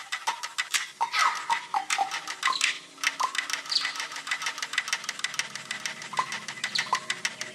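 Experimental music soundtrack of rapid, irregular clicking and ticking percussion like a wood block or clock, with short falling pitched blips; a low steady drone comes in about five seconds in.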